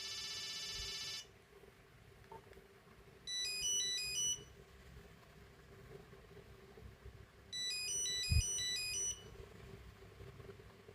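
Nokia 8250 playing brief snippets of its monophonic ringtones. A buzzy tone lasts about a second at the start, then two short runs of quick beeping notes follow a few seconds apart. A low knock falls during the second run.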